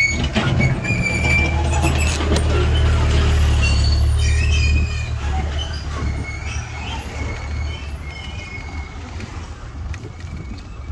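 Wind rumbling on the microphone of a moving e-bike, strongest for the first five seconds and then easing, with short high squeaks now and then on top.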